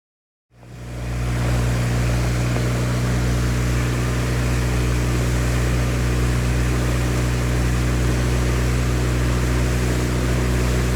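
A boat engine running steadily under way, a low even drone with the rush of water and wind over it, starting about half a second in.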